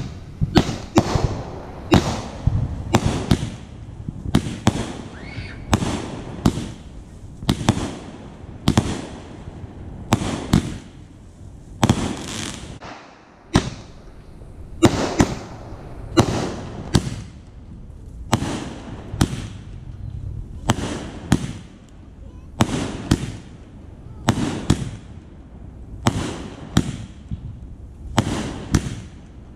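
Consumer firework cake firing shot after shot, about one a second, each a sharp pop with a short decay, with a brief lull about halfway through.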